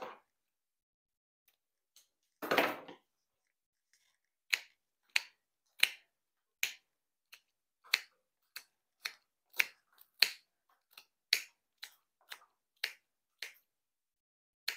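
A short rustle, then a run of about fifteen sharp clicks, roughly two a second, from small hand work at a table.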